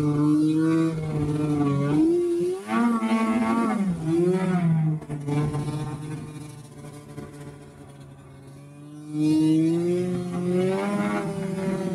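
Snowmobile's two-stroke engine running under throttle, its pitch rising and falling. About five seconds in the throttle comes off and the sound drops away for a few seconds, then the engine picks back up near nine seconds.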